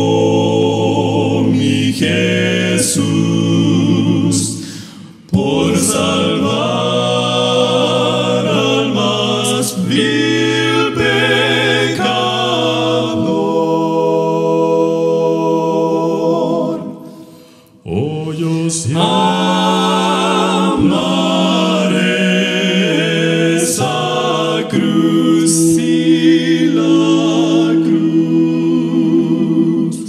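Male vocal quartet singing a gospel hymn a cappella in close harmony, holding long chords. The singing breaks off briefly twice, about five seconds in and a little past halfway.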